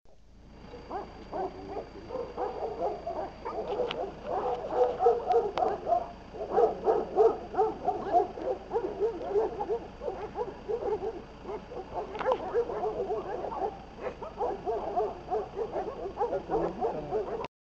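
Several dogs barking at a brown bear, rapid overlapping barks that keep up without a break, then cut off suddenly near the end.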